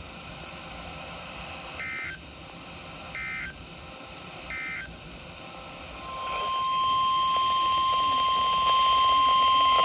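Three short bursts of EAS digital data tones (SAME code) about a second and a half apart, over radio hiss. About six seconds in comes the NOAA Weather Radio 1050 Hz warning alarm tone, one steady pitch that is louder than the bursts, marking the start of the next warning broadcast.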